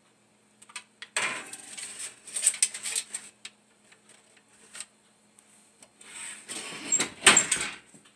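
Metal oven rack and foil-covered pan rattling and scraping as they slide into a wall oven, then the oven door being pushed shut with a louder clatter near the end.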